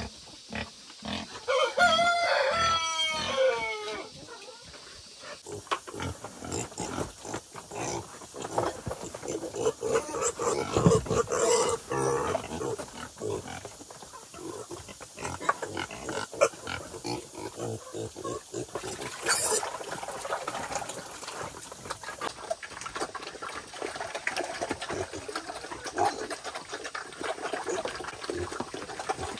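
Farmed wild boar calling, with one long falling squeal about two seconds in, then a busy stretch of short clicks and knocks.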